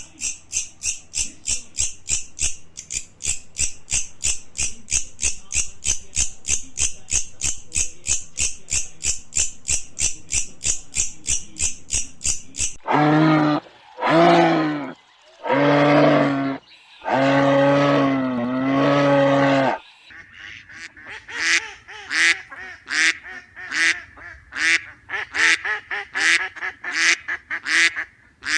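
A run of animal calls in three parts. First a fast, high trill of about four pulses a second for some thirteen seconds. Then four long, low calls, followed by short calls repeated about twice a second.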